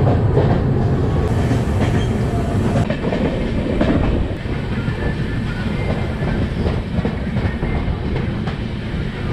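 Poorva Express passenger train running, heard from an open coach door: wheels clattering over the rails under a steady rumble and wind rush.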